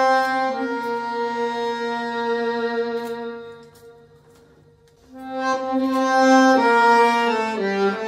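Tango played on violin and bandoneón: long held notes that die away to a near pause about three and a half seconds in, then a loud chord enters about a second later and steps down in pitch near the end.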